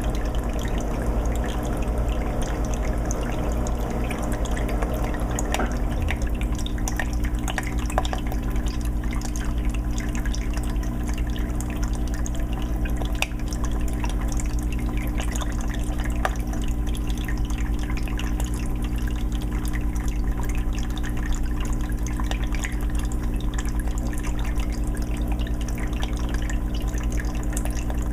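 A 20-gallon fish tank's water filter running: water trickling and dripping into the tank with many small splashes, over a steady low hum from the filter motor.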